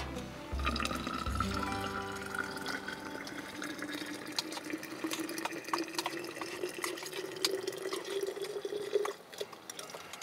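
Steaming liquid poured from a cook pot into a steel vacuum flask. The filling tone rises slowly in pitch as the flask fills, and the pour stops about nine seconds in.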